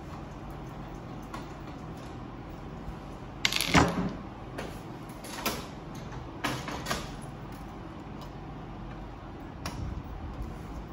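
Handling of the plastic parts of a Ricoh MP C306 copier during toner hopper removal: a few sharp clicks and knocks, the loudest with a short scrape about three and a half seconds in, others a couple of seconds later, over a steady low hum.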